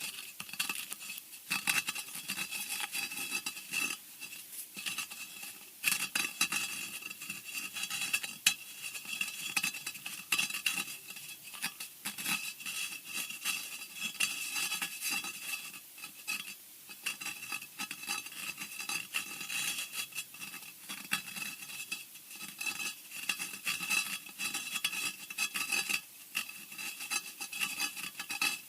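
Scratching sound effect: a dense, irregular run of short scratching and scraping strokes that keeps going with no pauses, with a few louder strokes standing out.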